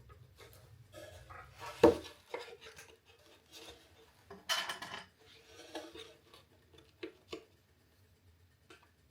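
Objects being handled: light clicks and knocks, a sharp knock about two seconds in, and a short scrape near the middle.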